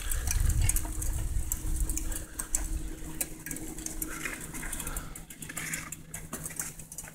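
Bicycles rolling along a dirt trail: tyres on dirt with many scattered ticks and rattles from the bikes, and wind rumbling on the microphone for the first few seconds.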